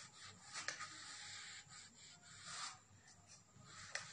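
Pen scratching on paper while writing out a line of equations by hand, heard as a string of short, faint strokes.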